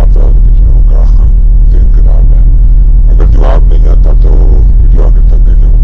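A loud, steady low droning rumble, with short voice-like sounds over it every second or so.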